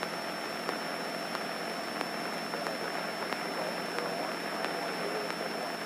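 Steady cabin noise of a Mooney single-engine airplane in cruise, heard through the headset intercom as an even hiss with a thin high-pitched whine and faint regular ticks.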